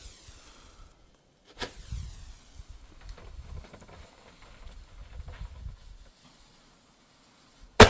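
A single loud, sharp firework bang just before the end, ringing out briefly. Before it, a few seconds of low rumbling microphone noise with small knocks.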